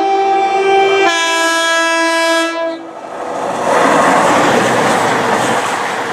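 CrossCountry Class 220 Voyager diesel unit sounding its two-tone horn in a long blast that stops about three seconds in, followed by the loud rush of the train passing through the station at speed.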